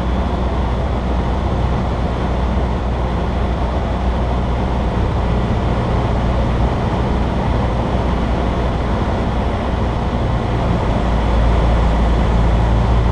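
Cessna 152's four-cylinder Lycoming engine and propeller droning steadily in cruise, heard inside the cabin with airflow rushing over the airframe. It grows a little louder over the last couple of seconds.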